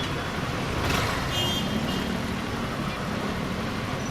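Motorcycle riding on the road: a steady engine hum under wind and road noise. There is a whoosh about a second in, and a brief high-pitched tone just after it.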